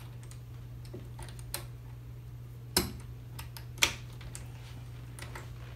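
Small metal clicks and taps of a rifle takedown barrel coupling and its spring sleeve being worked by hand onto the barrel, with two sharper clicks about three and four seconds in, over a steady low hum.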